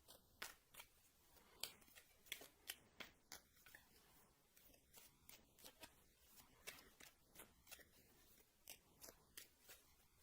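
Tarot cards being shuffled and drawn: faint, irregular flicks and snaps of card stock, a few a second.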